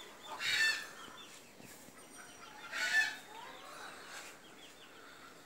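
Chickens clucking, with two short loud calls about half a second and about three seconds in, and faint bird chirps in between.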